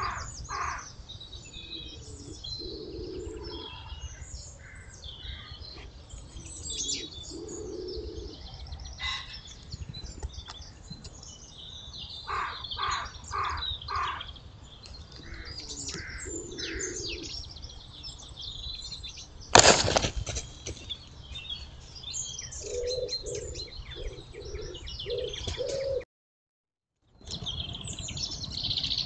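Woodland birdsong: several small songbirds chirping and singing over one another, with some lower repeated calls, a run of them near the end. A single sharp crack about twenty seconds in is the loudest sound, and the sound cuts out for about a second near the end.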